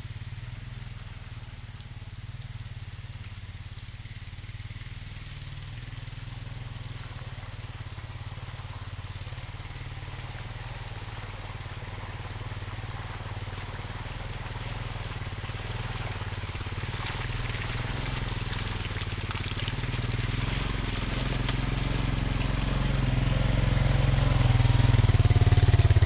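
ATV engine running as the quad approaches, growing steadily louder throughout.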